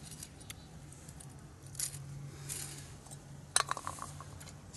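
Metal camping-stove parts being handled: a few light clinks and short rustles, with one sharper metallic clink about three and a half seconds in.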